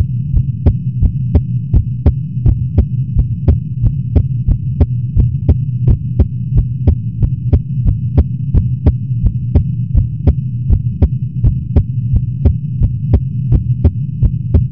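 Amplified human heartbeat, a little fast, beating evenly and sharply. Under it runs a loud, steady hum from an air conditioner.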